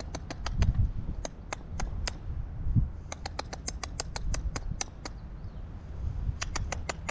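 A squirrel chattering: runs of sharp, dry clicks, about five a second, broken by short pauses. A low rumble swells underneath twice.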